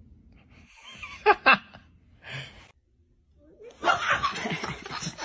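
People laughing: two short, sharp bursts of laughter and a smaller one, then after a brief pause a longer run of laughter.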